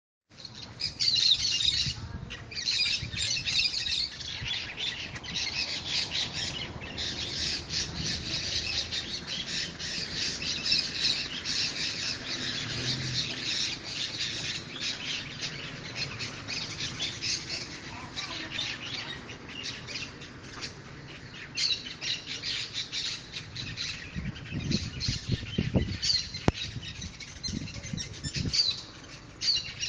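A dense chorus of many birds chirping and calling at once, filling the air without pause. A few low rumbles stand out briefly near the end.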